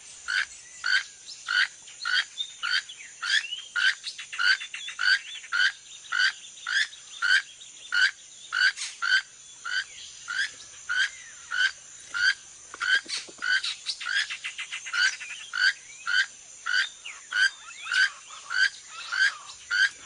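Keel-billed toucan calling: a frog-like croak repeated about twice a second, over a steady high hum of rainforest insects.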